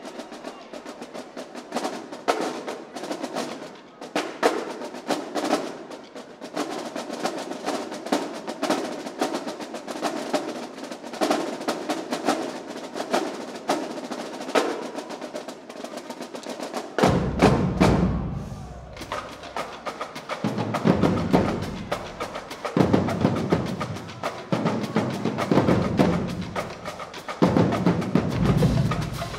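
Marching drumline playing a fast cadence. Snare and tenor drums play rapid strokes alone at first, then bass drums join with heavy low hits a little past halfway.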